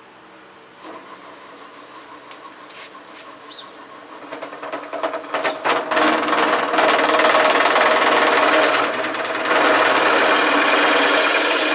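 Shopsmith 520 power tool starts about a second in and runs with a steady whine. From about four seconds in, the bit or blade bites into the workpiece with a loud, rough cutting noise that eases briefly near nine seconds and then picks up again.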